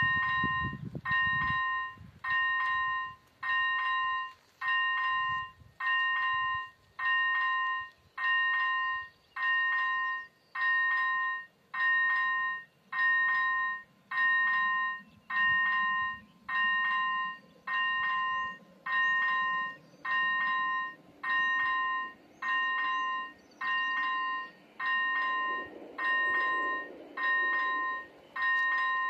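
Railway level-crossing warning bell sounding its electronic ring, one ring about every second and evenly repeated, switched on together with the flashing red lights: the crossing is activated, warning of an approaching train.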